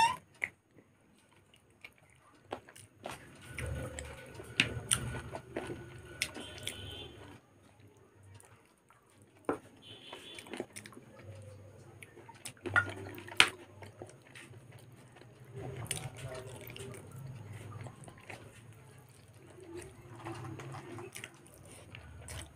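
Close-up wet chewing and mouth sounds from a person eating curry and rice by hand: moist smacking with sharp clicks, in several stretches with short pauses between.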